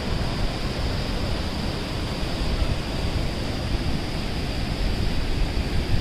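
Steady rushing of Keoti Falls, a tall waterfall pouring over a cliff lip into a deep gorge pool: one continuous, even noise with no breaks.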